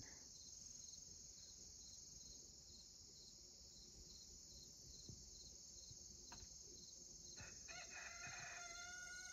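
Faint, steady chirping of crickets. Near the end comes a single drawn-out animal call lasting about two seconds.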